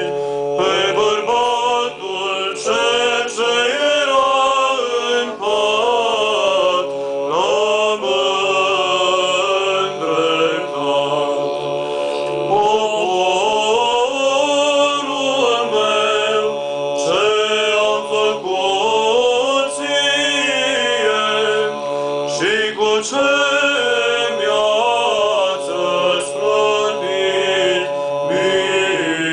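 Small group of men singing Orthodox church chant a cappella, in Romanian: a melody line moving and ornamented over a steady held drone.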